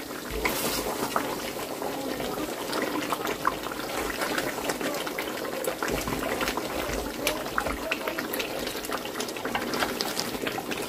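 Thick chicken curry sizzling and bubbling in an aluminium pot while a wooden spatula stirs it, with scattered crackles and a few dull knocks of the spatula against the pot.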